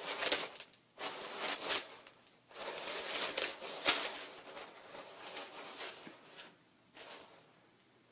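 A ferret scrabbling through a pile of macaroni, the pasta pieces rustling and rattling in bursts of about a second, with a short burst near the end.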